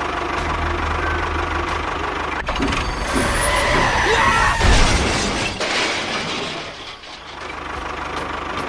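Small engine running with a steady low pulse, growing louder and rougher for a few seconds in the middle before easing off near the end.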